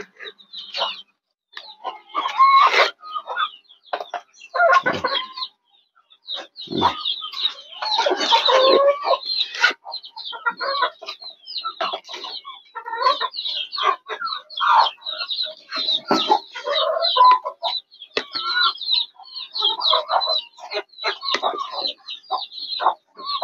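Caged game-fowl roosters clucking on and off, mixed with quick irregular taps of beaks pecking at plastic feed cups.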